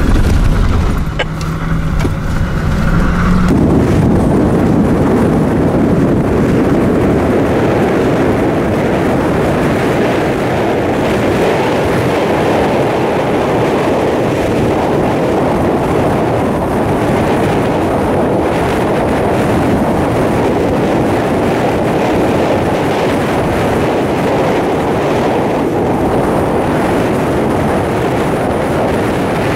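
Car engine note inside the cabin, rising slightly as the car accelerates, then from about three and a half seconds a loud, steady rush of wind over the microphone mixed with road noise from the moving car.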